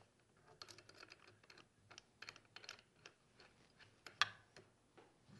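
Faint, scattered small metal clicks and taps of a plunge router's collet being swapped by hand, with one sharper click about four seconds in.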